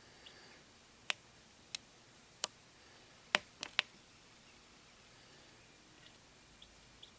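Hatching chick pecking at its eggshell: six sharp clicking taps over about three seconds, the last three close together, then a few faint peeps near the end.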